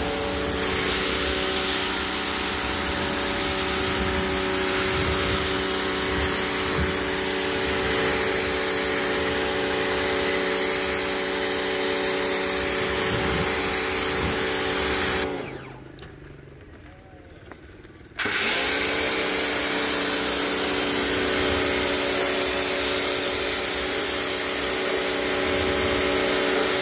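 Pressure washer running: the motor and pump hum steadily under the hiss of the spray from the wand. About fifteen seconds in it stops for about three seconds, then starts up again.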